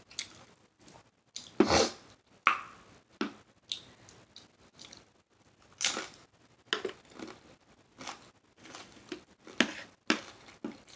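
A person eating a mouthful of shrimp salad close to the microphone: wet smacking and irregular crunchy chewing clicks, the loudest about two and six seconds in.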